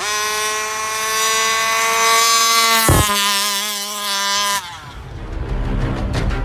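Rovan 34cc two-stroke engine of a 1/5-scale RC Baja running flat out at high revs on a top-speed run, holding a steady, high pitch. There is a short sharp knock about three seconds in, after which the pitch dips slightly and wavers. The engine sound cuts off suddenly after about four and a half seconds, and intro music starts near the end.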